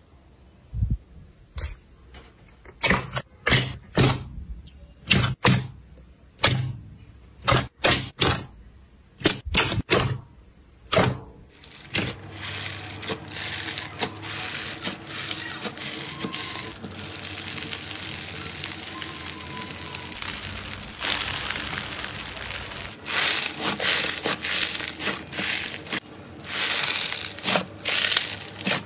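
Slime being squeezed and worked by hand: a string of sharp, separate pops and clicks for about the first eleven seconds, then a dense, continuous crackling, with louder pops again near the end.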